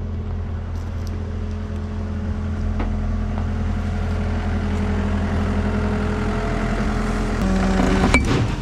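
Skid steer engine running steadily as the machine creeps forward on a track that is ripped nearly in half. Near the end comes a single sharp metallic clink as the damaged track pops off.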